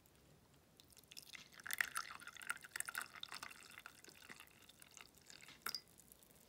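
Tea poured in a thin stream from a glass measuring jug into an opal-glass cup, trickling and splashing. The stream grows heavier about a second in and thins to a light trickle after a few seconds, with one short sharper splash near the end.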